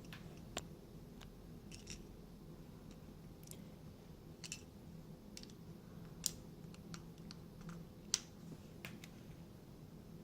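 Small, scattered plastic clicks and taps from handling an opened car smart-key remote's plastic case, with two sharper clicks about six and eight seconds in. A faint steady hum sits underneath.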